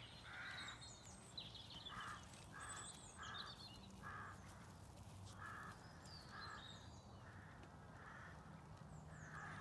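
Crows cawing faintly in the distance, about ten short harsh caws spread unevenly, with faint chirps of smaller birds above them.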